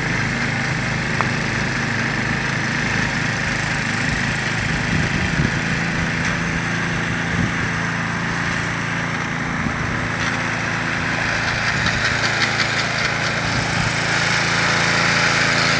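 Small engine running steadily under a broad hiss, a little louder in the last couple of seconds.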